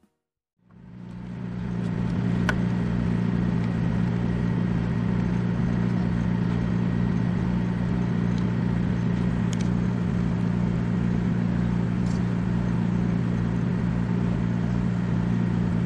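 Steady low drone of a ship's engine heard on board, over a hiss of wind and sea. It starts after a brief silence and fades in over the first two seconds.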